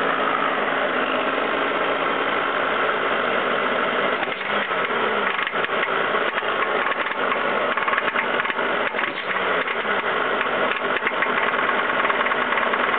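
Ford 5.0L V8 running at idle with a pronounced knock, which the mechanic suspects is rod knock from the driver's side of the engine.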